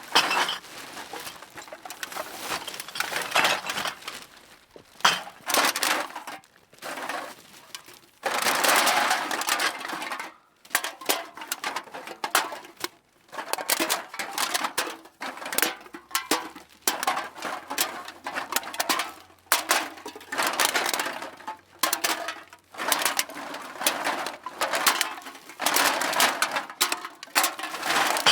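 Cans being dropped into a bag, clattering against one another in irregular bursts, some brief and some longer and denser, with short pauses between.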